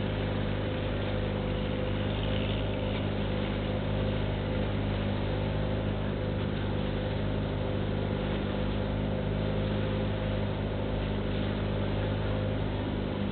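Outrigger passenger boat's engine running steadily at cruising speed, a constant drone heard from on board, with a hiss of water and wind over it.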